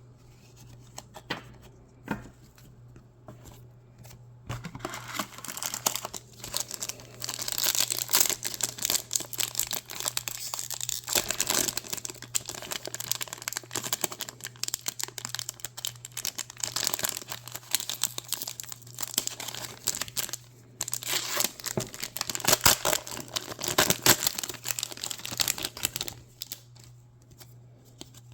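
The foil wrapper of a Pokémon card booster pack crinkling and tearing as it is handled and opened. The crackling goes on for most of the stretch, with short pauses.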